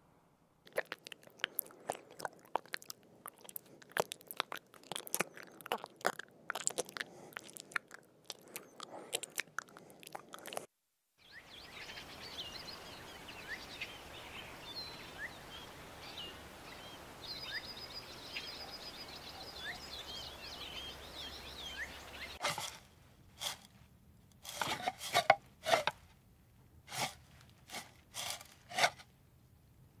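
Quick, irregular crunching, as of an animal chewing food. After an abrupt cut come about eleven seconds of small bird chirps over a steady background hiss, then a few separate crunches near the end.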